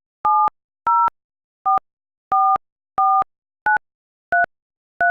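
Touch-tone telephone keypad tones dialing a number, one two-tone beep per key press at about one every two-thirds of a second, eight presses in all. The tone pairs spell the digits 7-0-4-4-4-9-3-3 of 770-444-9336.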